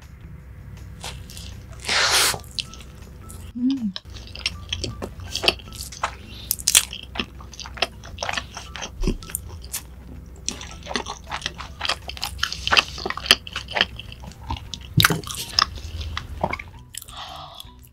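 Close-miked biting and chewing of a cheeseburger: wet mouth clicks and smacks, with one louder bite about two seconds in. A steady low rumble runs underneath.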